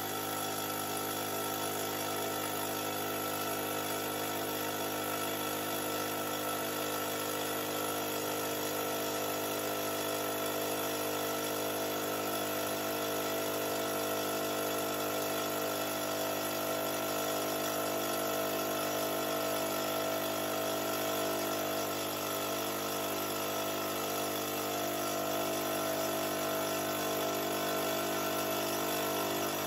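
Fortress 5-gallon, 1.6 HP air compressor running steadily as it pumps up the tank. Its faulty pressure switch is not cutting the motor off at the rated 225 psi.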